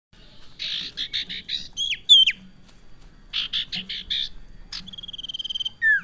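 Common iora (sirtu) singing in full voice: two runs of harsh, rasping notes at about five a second, sharp down-slurred whistles after the first run, and a long level whistle near the end.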